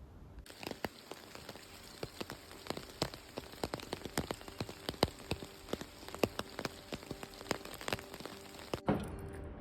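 Steady rain, with many irregular drops striking close by over a constant hiss; it cuts off abruptly near the end.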